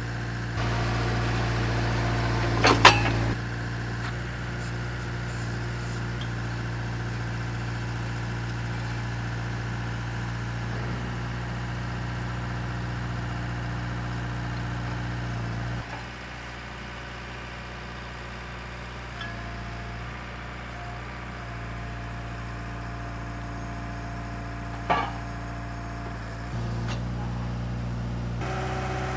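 Drilling rig's engine running steadily, its note shifting in level a few times as the load changes. Two loud sharp knocks break in, one about three seconds in and one late on.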